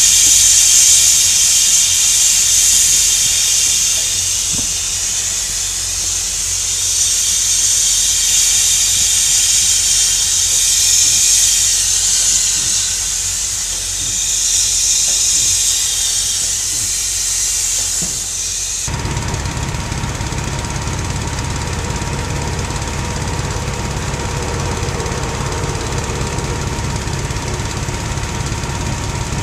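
Air hissing steadily out of a large flotation tire as it is deflated. About two-thirds of the way through it cuts abruptly to a diesel engine idling steadily.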